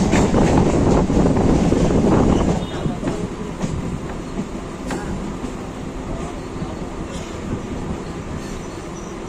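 Suburban electric local train running on the rails: a louder rush of noise for about the first two and a half seconds, then a quieter, steady running rumble with faint tones through it.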